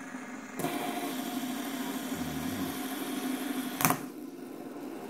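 Fidget spinners spinning with a steady whirring buzz that starts about half a second in. A single sharp click comes just under four seconds in, after which the buzz drops away.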